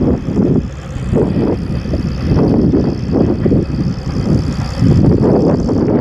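Wind buffeting the microphone in uneven gusts, over the distant steady running of an International Harvester 956 XL tractor pulling a field roller.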